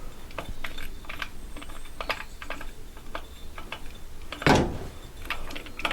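Small metal clutch parts of a motorcycle engine being handled and turned by hand: a run of light metallic clicks and rattles, with one louder knock about four and a half seconds in.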